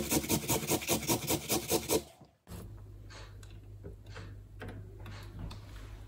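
Carrot grated by hand on a flat metal grater: quick rasping strokes, about five a second, stopping about two seconds in. After that come faint taps and rustles of grated carrot being gathered off a plastic chopping board, over a low steady hum.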